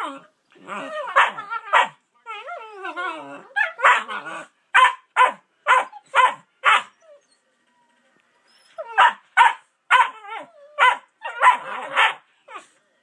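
Two puppies vocalizing back and forth: wavering whines and grumbles, then a run of short barks. After a pause of about two seconds comes another run of barks.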